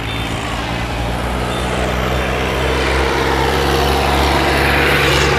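Highway traffic: a large motor vehicle's engine running with a steady low hum, its tyre and engine noise growing louder as it approaches and is loudest about five seconds in.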